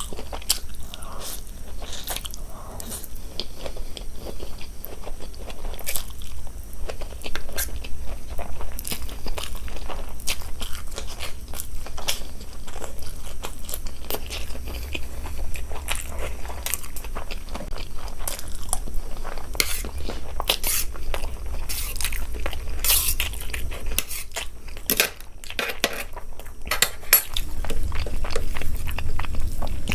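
A person chewing and biting food close to the microphone: irregular wet mouth clicks and crunchy bites, thicker and louder in the second half, over a steady low hum.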